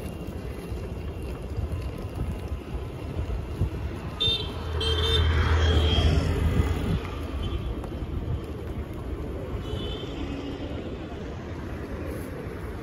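Street traffic rumbling steadily, with a vehicle engine swelling louder as it passes about five seconds in. Short horn toots sound around four to five seconds in and again near ten seconds.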